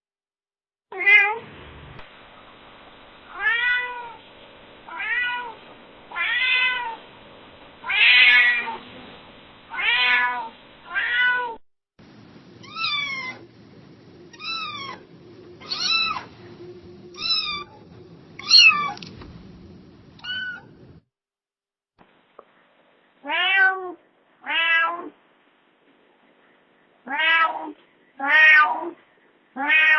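Domestic cat meowing over and over, roughly one meow every second or so, each one rising and falling in pitch. The meows come in three separate runs with short silent gaps between them.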